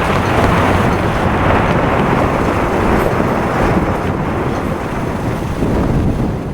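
Strong wind blowing across the microphone: a loud, steady rushing with a heavy low rumble.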